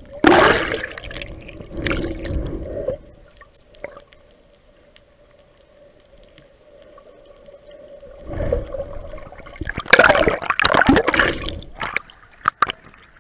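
Water sloshing and bubbling around an action camera held underwater while snorkeling. There are two loud spells, one at the start and one from about eight seconds in, with a quieter stretch between them. A faint steady hum runs underneath, and near the end there are a few sharp splashes as the camera breaks the surface.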